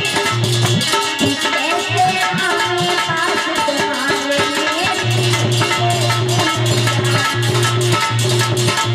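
Instrumental bhajan music: a fast, steady Indian hand-drum rhythm under a wavering melody line. A repeated low bass note pulses along with the rhythm from about five seconds in.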